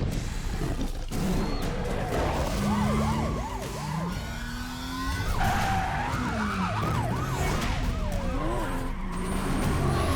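Action-film sound effects over a heavy low rumble: cars racing and a police siren wailing in quick up-and-down yelps, in two runs about three and six seconds in.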